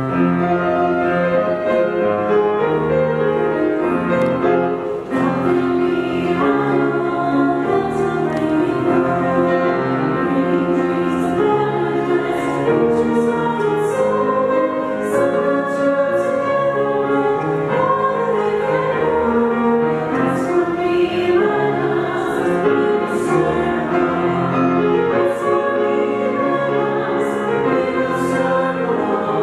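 Closing hymn of a Mass: voices singing a hymn with piano accompaniment, with sustained chords throughout.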